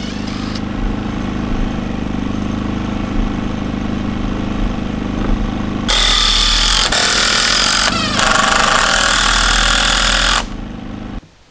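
Power tools at work: a steady machine hum, then a loud power tool runs for about four seconds and stops abruptly.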